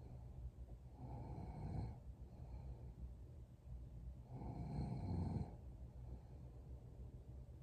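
A sleeping young woman snoring: two slow snoring breaths, one about a second in and a longer, louder one about halfway through.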